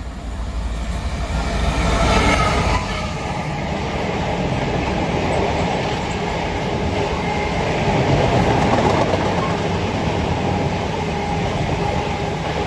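A diesel freight locomotive's engine rumbling low as it approaches. From about three seconds in, a long rake of bulk tank wagons rolls past with a steady clatter of wheels on the rails.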